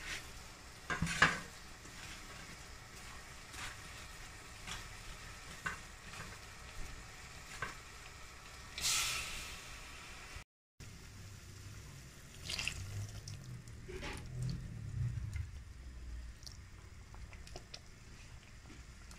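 Vegetables simmering in broth in a metal pot: a soft steady sizzle with scattered small pops. A sharp knock comes about a second in and a short hiss near the middle, and the sound drops out for a moment just after.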